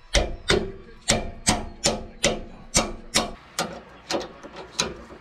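Hand ratchet wrench on a 17 mm nut, clicking in about a dozen quick, even back-and-forth strokes as the nut is worked off.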